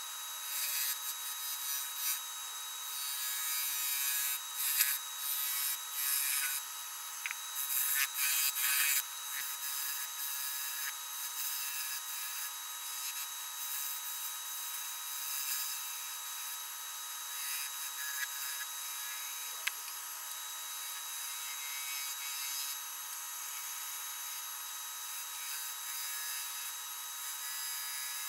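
Turning tool cutting a walnut goblet spinning on a wood lathe: bursts of scraping cuts for about the first nine seconds, then lighter, steadier cutting, over a steady high whine.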